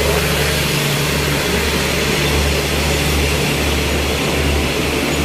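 Diesel engine of a stationary passenger train idling: a loud, steady low hum with a constant rush of noise over it.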